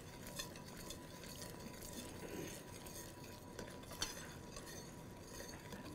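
Metal spoon stirring a boiling butter-and-sugar mixture in a stainless steel saucepan, with a few faint clinks against the pot, the loudest about four seconds in.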